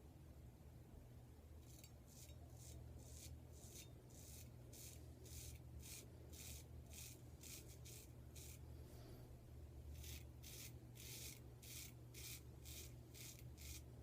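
Faint, quick strokes of a vintage Adoration square-tip straight razor shaving stubble from the face over a thin lather-less shaving cream, about two scrapes a second. The strokes pause briefly about nine seconds in, then carry on.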